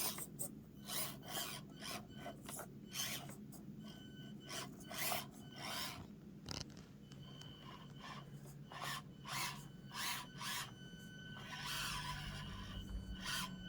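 Stock SCX24 Deadbolt micro crawler inching over its course: short rasping scrapes a couple of times a second as its tyres and chassis work over the obstacles, over a faint steady whine of its small motor and gears.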